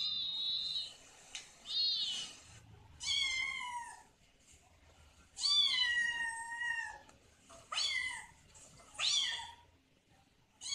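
Cat meowing: about six high meows, each dropping in pitch at its end, with short pauses between.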